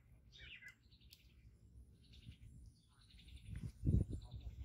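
Birds calling and chirping at intervals over a low outdoor rumble, one call falling in pitch in the first second. About four seconds in comes a brief cluster of low thuds, the loudest sound.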